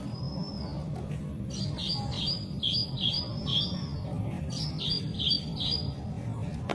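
White-rumped shama singing: a short high whistle, then a quick run of about six repeated notes, a pause, and about four more, over a steady low hum.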